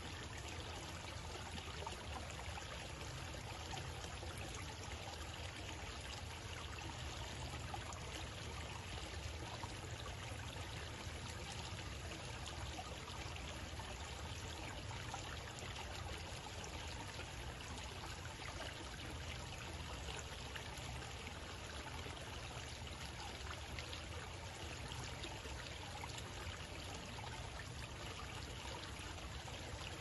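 Water cascading down a waterfall and through a meandering stream, a steady, even sound with no breaks.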